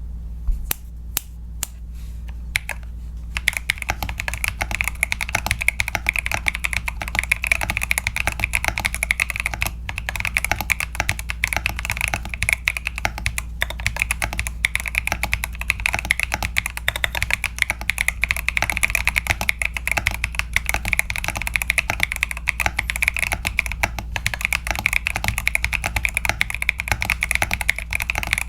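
Mechanical keyboard with tactile switches and FSA PBT doubleshot keycaps being typed on: a few single keystrokes, then fast continuous typing from about three seconds in.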